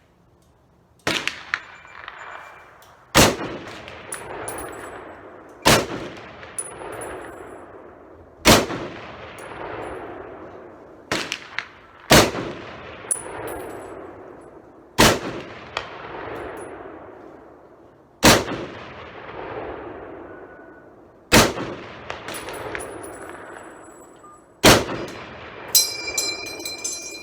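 Rifle fired about nine times at a slow, steady pace, roughly one shot every three seconds, each shot echoing and dying away over a couple of seconds. Bright metallic pings ring between some shots, with a cluster of them near the end.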